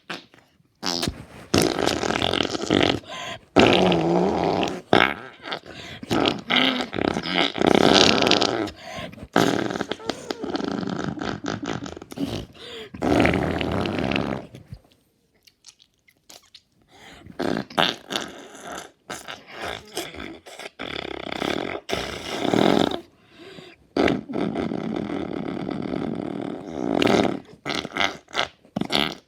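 Drawn-out, rough fart sounds in long spells broken by short gaps, with a silence of about two seconds halfway through.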